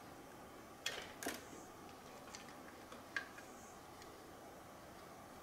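A few small, sharp clicks of needle-nose pliers and plastic wire connectors being worked off a circuit board: two close together about a second in, another near three seconds, with fainter ticks between.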